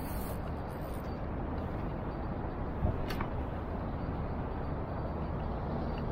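Steady low wind rumble on the microphone over open water, with a single sharp click about three seconds in.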